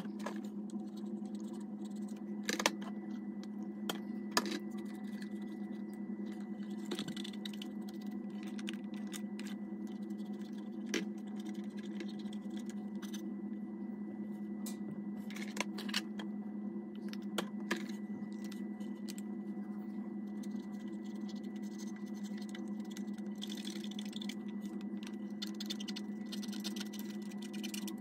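A steady low hum, with scattered light clicks and taps from hands on a plastic clock radio. Near the end comes a soft scratchy rubbing as a cotton swab scrubs around its slide switch.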